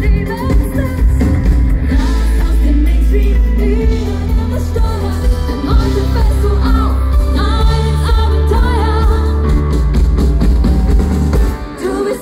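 Live schlager-pop song: a woman singing the lead over a band with drums and a heavy, steady bass. The music dips briefly just before the end.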